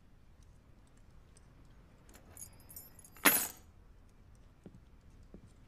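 A bunch of keys jingling faintly, then dropped onto a wooden desk with one short, loud clatter a little past halfway.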